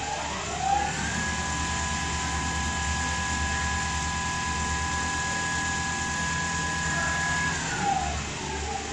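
Richpeace automatic CNC cushion-cover sewing machine running: a motor whine glides up about a second in, holds steady, and glides back down near the end, over a steady low hum.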